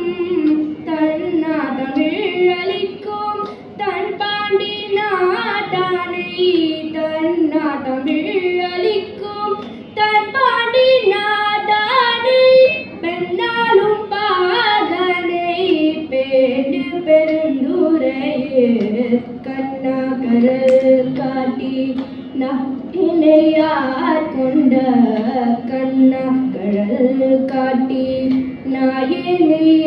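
A girl singing a Tamil devotional hymn solo in Carnatic style, her voice winding and gliding between notes with continuous ornamentation.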